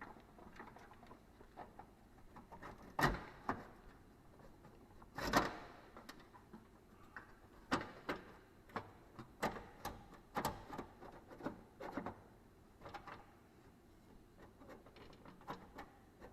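Hand tools and metal parts clicking, clinking and knocking at irregular intervals during reassembly work under a pickup's hood, with two louder knocks about three and five seconds in, the second ringing briefly.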